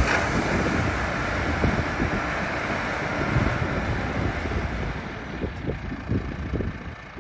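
Wind buffeting the microphone over the steady running of a John Deere 6120M tractor and its round baler, fading out toward the end.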